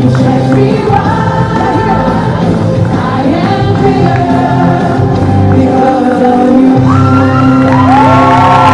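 Loud recorded gospel song with singing and a steady bass line, played over a hall's speakers; near the end sliding high sung tones come in.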